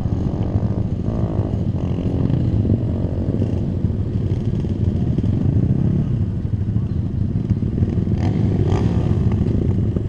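Several single-cylinder supermoto motorcycles, Kawasaki KLX D-Tracker among them, idling close by: a steady low rumble.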